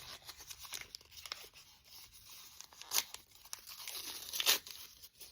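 Plastic toy packaging being torn open and crinkled by hand, with scattered rustles and two sharper crackles about three and four and a half seconds in.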